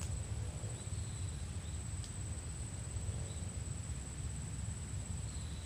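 Open-air ambience: a steady high-pitched insect trill over a low rumble of wind on the microphone, with a few faint short chirps.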